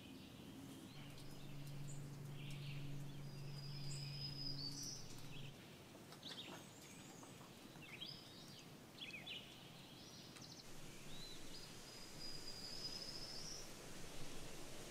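Woodland birds singing softly, with scattered high chirps and two long, high trills. A faint low hum stops about five seconds in.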